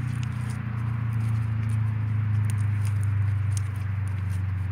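Steady low rumble, with a few faint sticky clicks from hands kneading white glue-and-borax slime.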